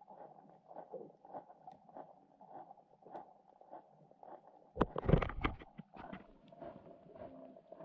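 Underwater sound through a GoPro housing: faint scattered clicks over a low steady hum, then a loud knock and rumble about five seconds in as the camera rig is jolted and swings.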